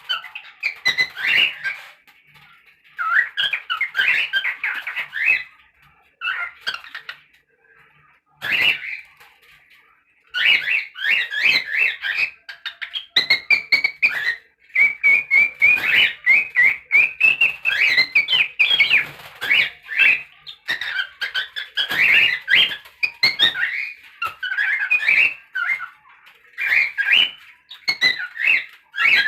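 Pet cockatiel chattering and whistling: fast runs of chirpy, bending notes in bursts, with short pauses about two, six and nine seconds in.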